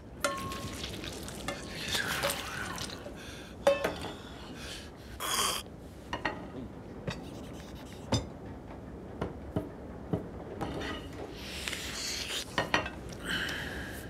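Dishes and cutlery clinking: china plates set down on a table and clattering against each other in a string of separate sharp knocks and clinks, a few ringing briefly.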